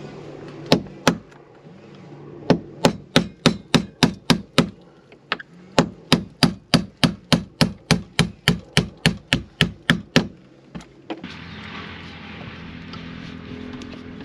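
Hammer striking a nail punch to knock copper nails out of a wooden boat's frames: two blows, then two long runs of steady blows at about four a second. Near the end the hammering stops and a steady rushing noise takes over.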